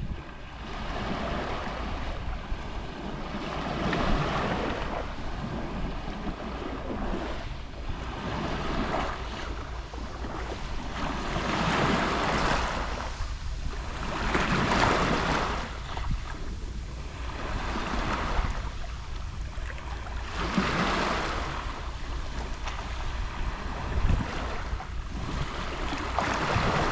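Gentle sea waves lapping on the shore, each swell of wash rising and falling every few seconds, over a steady low rumble of wind on the microphone.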